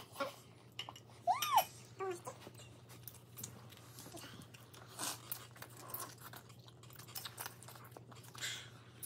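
Children eating at a table: chewing and crunching green onion kimchi and black bean noodles, with frequent small clicks of forks and chopsticks against ceramic bowls. A short rising-and-falling tone sounds about a second and a half in, and a brief slurp comes near the end.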